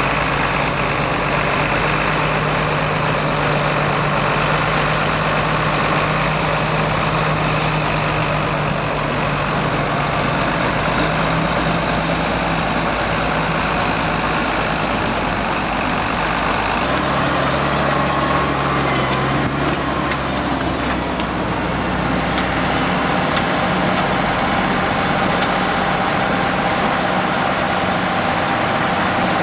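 Diesel engines of combine harvesters and tractors running steadily while harvesting wheat. The engine sound changes abruptly about 17 seconds in to a deeper one.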